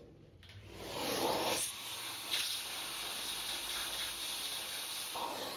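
Vacuum nozzle pressed against an AirPod's speaker grille, sucking air through the mesh with a steady hiss. The hiss builds about a second in and eases near the end. It is drawing loosened dirt out of the clogged grille.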